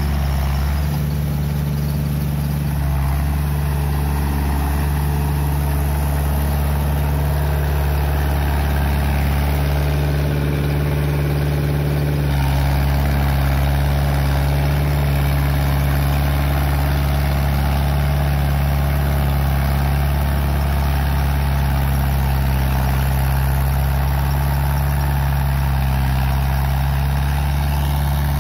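New Holland TD80 tractor's diesel engine running steadily under load as it pushes mud with its front blade. The engine sound shifts and grows slightly louder about twelve seconds in.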